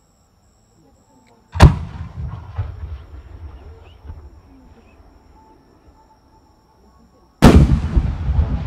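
Two aerial firework shells booming about six seconds apart. Each goes off with a sudden, very loud report followed by a long rumbling echo that dies away over several seconds.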